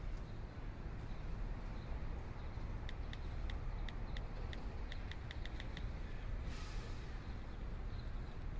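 Outdoor ambience: a steady low rumble of wind and distant traffic, with a small bird giving a quick, uneven run of short high chirps from about three to six seconds in. A brief rushing hiss follows about six and a half seconds in.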